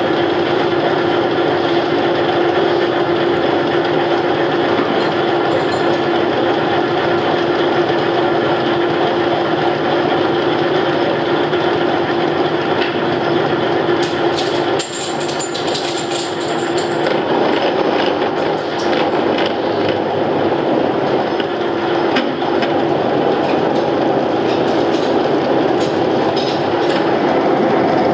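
Cincinnati machine hobbing the teeth of a steel motorcycle front sprocket, its drive and cutter running with a steady hum. About halfway through the level dips briefly and the note changes, with a few seconds of crackly spattering as milky coolant floods the cut.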